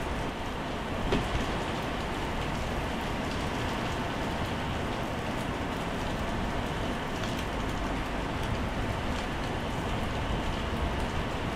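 Heavy rain falling steadily on wet tiled paving, a dense even hiss with scattered sharper drop ticks. One louder splat comes about a second in.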